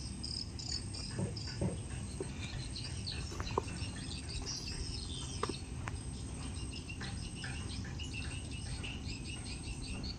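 Chirping of insects and birds: many short high calls repeating at an even pace over a steady low rumble, with a few sharp clicks in the middle.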